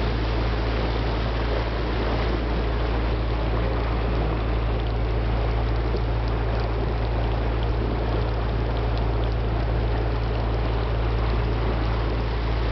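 Motor cruiser under way at a brisk pace, its engine a steady low drone, with water rushing along the hull.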